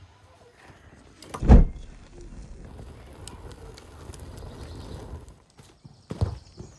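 A wood fire burning in an open metal fire box, with scattered crackles. A heavy thump comes about a second and a half in, and two sharper thumps come near the end.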